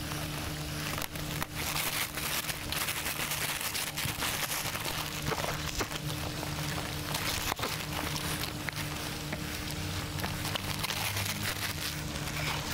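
Plastic fish-shipping bag rustling and crinkling in short bursts as it is handled and lifted out of its box, over the steady splash of water churning a koi pond's surface and a steady low hum.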